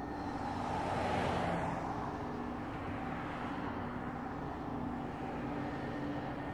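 Steady droning hum with a few held tones and a rushing swell that builds about a second in and fades by two seconds.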